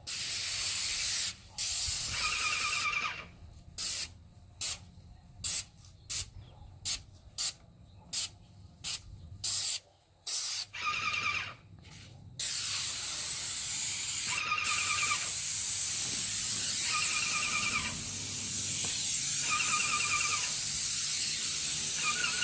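Airless paint sprayer hissing as paint is sprayed onto barn siding. First come long steady passes, then a run of quick trigger pulls a little more than one a second, then one long unbroken pass. A short squeal recurs every few seconds.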